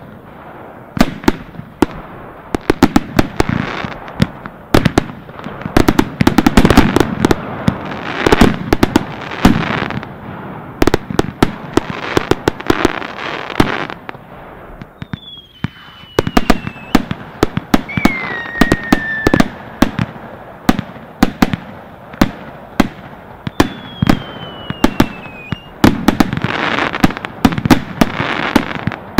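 Fireworks going off in rapid volleys of bangs and crackling aerial bursts. About halfway through there is a brief lull, during which a few falling whistles sound, and then dense bursts pick up again near the end.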